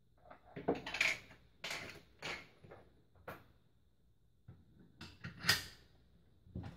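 Stereo zoom microscope parts being handled and fitted onto the stand: a run of irregular short clicks and knocks, several in quick succession about a second in and again about five seconds in.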